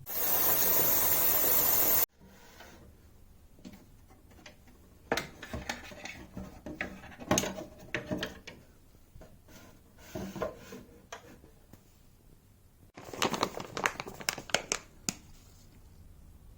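A loud rushing noise for about two seconds that cuts off suddenly, then scattered clicks and knocks of a coffee machine being handled and set up, with a busier run of clatter about thirteen seconds in.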